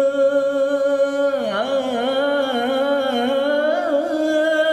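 A man singing a dangdut song unaccompanied, holding one long note on a vowel, with a wavering run of dangdut-style ornaments (cengkok) in the middle before settling back on the held note.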